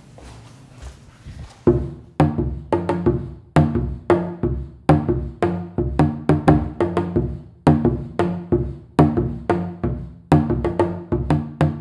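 Remo tubano drums played in a steady groove, beginning about two seconds in: repeated ringing strokes of several pitches, about three to four a second.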